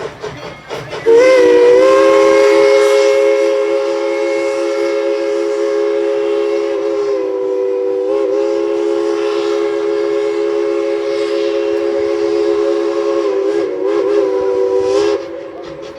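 Steam locomotive No. 190, a 2-8-2 Mikado, blowing its chime steam whistle in one long blast of several tones at once, with a brief waver near the middle and again near the end before it cuts off sharply. Before the whistle, the locomotive's exhaust is chuffing in a quick, even rhythm as it works upgrade.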